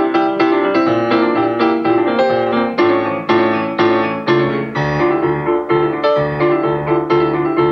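Grand piano played solo: repeated chords in a steady rhythm, with lower bass notes joining about halfway through.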